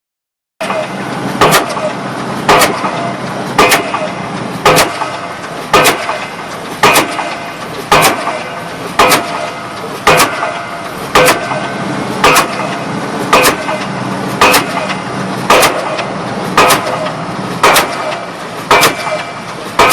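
Pile driver hammer striking a pile about once a second, each blow a sharp bang, over the steady running of the rig's engine. The sound starts about half a second in.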